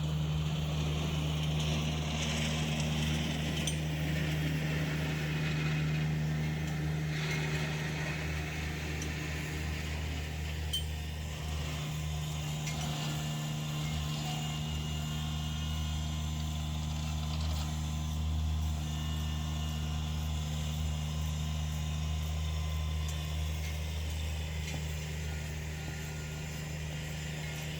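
An engine running steadily at a constant low pitch, with a few faint clinks.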